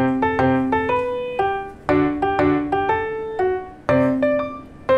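Background instrumental music: a quick, bright melody of struck notes that fade away, over a low note that comes back about every two seconds.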